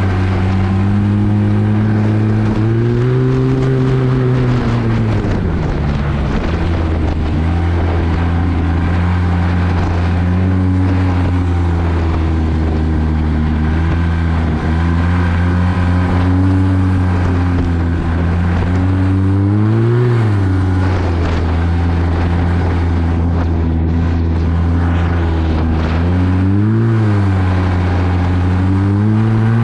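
Arctic Cat 1100 Turbo snowmobile engine running under way at speed, its pitch rising and falling a few times as the throttle changes, with a rushing hiss of wind and track over it.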